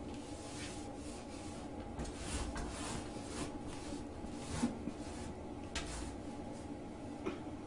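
Woven rag rug being tugged in short pulls under a door across a tile floor by a cat reaching from the other side: a string of rubbing, scraping swishes with a few sharp knocks, the loudest a little past halfway.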